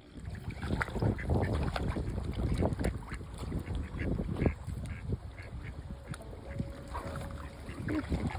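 Ducks quacking repeatedly in short calls over strong wind rumbling on the microphone.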